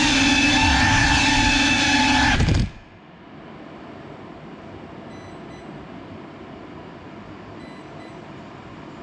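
GEPRC Cinelog 35 cinewhoop's brushless motors and propellers whining at a steady pitch, cutting off suddenly between two and three seconds in as the drone comes down. A low steady hiss follows, with two faint short beeps.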